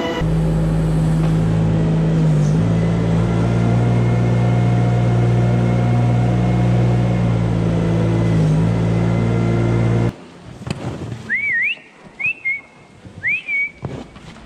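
A farm machine's engine and drive running steadily with a deep hum for about ten seconds, then cutting off abruptly. After it come three short rising chirps about a second apart and a few light knocks.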